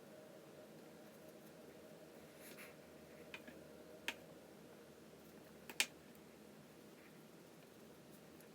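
Quiet room tone with a few light clicks and taps, about four in all, the loudest a little past the middle.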